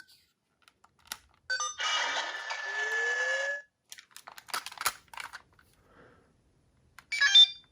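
Electronic sound effects: a few clicks, then a loud buzzing electronic tone for about two seconds with a short rising pitch inside it, more scattered clicks, and a ringtone-like run of chimes starting near the end.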